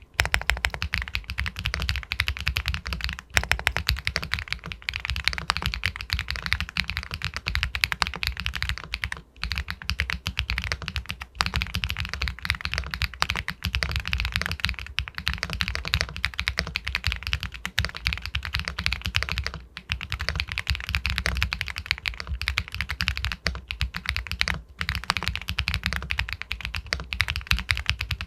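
Fast, continuous typing on an Epomaker Galaxy 80 Pro aluminium mechanical keyboard with White Jade linear switches, keystrokes clacking in quick succession with brief pauses about a third of the way in and again about two thirds in.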